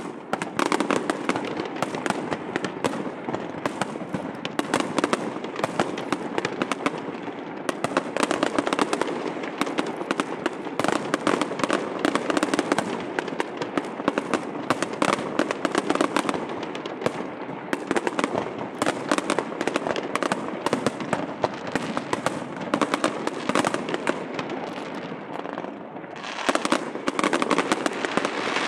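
Aerial fireworks going off in a dense, continuous barrage of sharp pops, bangs and crackles, with a brief lull near the end before a louder stretch.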